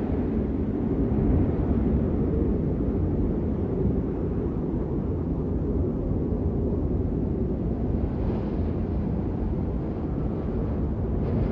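Blizzard wind blowing steadily, deep and low. Gusts swell higher about eight seconds in and again near the end.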